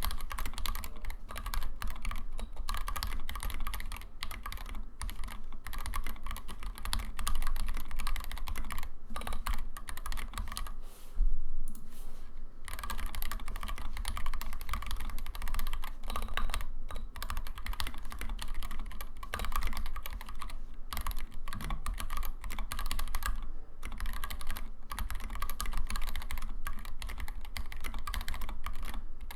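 Fast, continuous typing on a custom mechanical keyboard with stock Tealios linear switches and tall SA-profile keycaps: a dense, irregular clatter of key strikes. About eleven seconds in there is a short break in the clicks with a low thump.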